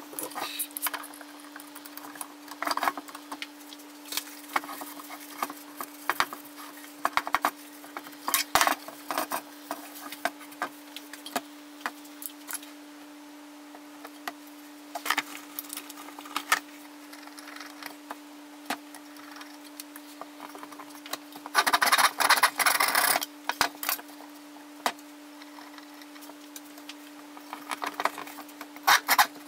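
Wooden parts and bar clamps being handled on a workbench: scattered clicks, knocks and rubbing of wood, with a louder stretch of scraping noise about two-thirds of the way through. A steady low hum runs underneath.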